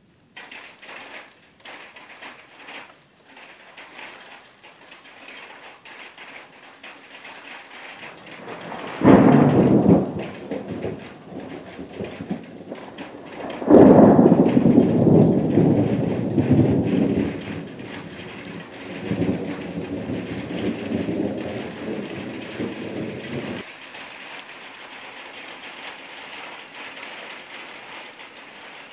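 Thunder during a rainstorm, with steady rain hissing throughout. A sudden thunderclap comes about a third of the way in. A few seconds later a second, louder clap rumbles on in waves for several seconds.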